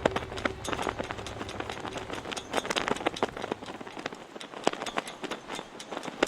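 Rapid, irregular flapping snaps and crackles, like a flag flapping in the wind: the 'flag flap' sound described on chest auscultation.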